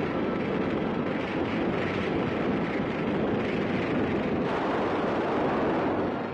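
Steady rushing noise of a large oil fire burning, a sound effect on an old film soundtrack.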